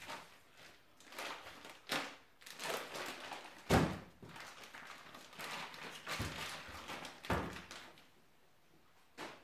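Vacuum-pack plastic being slit with a knife and peeled off pieces of cured meat, crinkling and rustling, with a few dull thumps, the loudest a little over a third of the way in.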